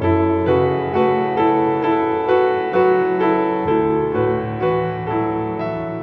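Soft piano music, a steady run of notes about two a second.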